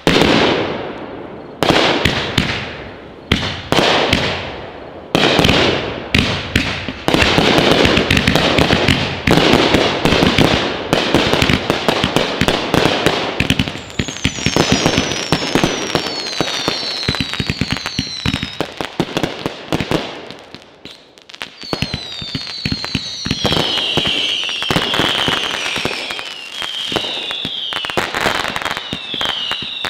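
Consumer aerial fireworks going off: sharp bursting reports about once a second at first, then a dense run of crackling bangs. From about halfway, many short whistles falling in pitch sound over the crackle.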